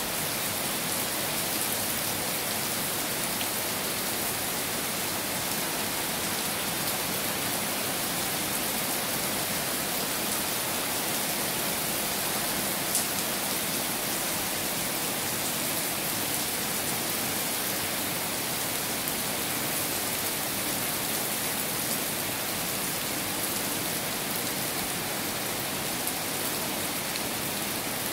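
Heavy rain falling steadily, an even hiss with no let-up, and one brief click about halfway through.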